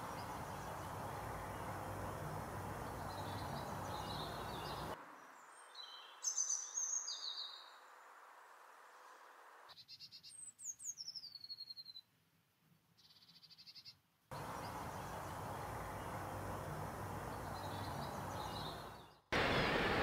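Small garden songbirds chirping in short bursts, with a European robin giving a thin, high, descending song phrase about ten seconds in. A steady background hiss comes and goes with stretches of near quiet between.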